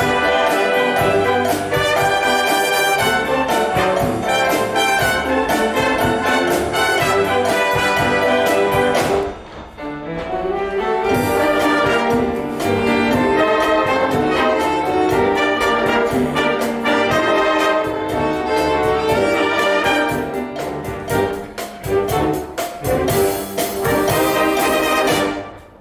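Concert wind band playing, with the brass to the fore. The playing dips briefly about ten seconds in and again near the end.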